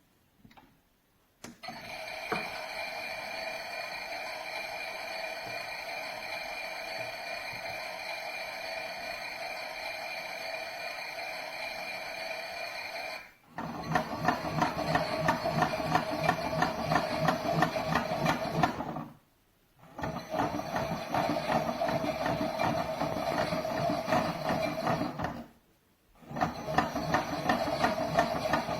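Theo Klein Miele toy washing machine's built-in washing sound effects playing from its small speaker. First a steady hum for about ten seconds, then a fast rhythmic churning that breaks off briefly twice and starts again.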